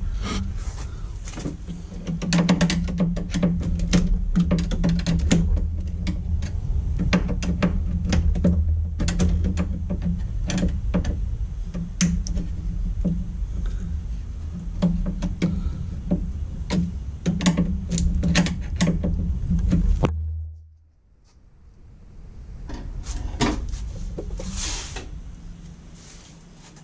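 Irregular clicks, knocks and metallic rattles as tools and wires are handled in an open metal electrical sub-panel while its wiring is undone. Under them runs a steady low hum that cuts off suddenly about twenty seconds in.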